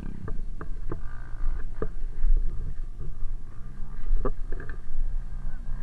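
Trail motorcycle engine running at low revs with a steady rumble, broken by scattered sharp knocks and rattles.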